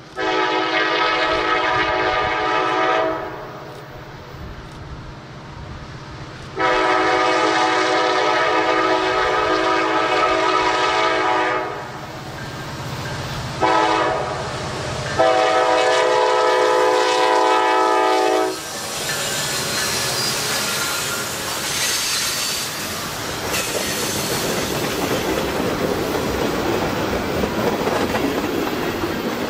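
Norfolk Southern freight locomotive air horn blowing the grade-crossing signal, long, long, short, long, as the train approaches. The horn then stops and the steady rumble and clatter of the passing train builds.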